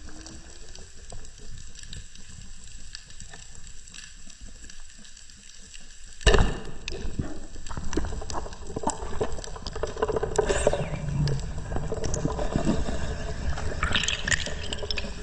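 Water noise as heard underwater, with bubbling and scattered clicks; about six seconds in there is a sudden loud knock, after which the bubbling and clicking become louder and busier.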